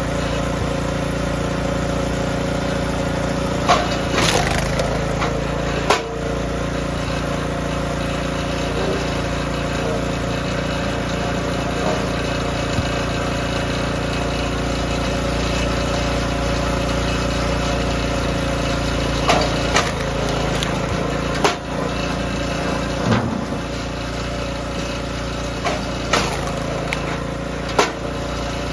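DR K28 Pro log splitter's small gas engine running steadily, with several sharp cracks and knocks spread through as the splitter drives through hardwood logs.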